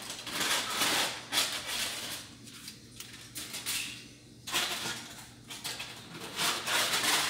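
Aluminium foil crinkling and rustling in several short bursts as it is pulled back from a roasting pan with tongs.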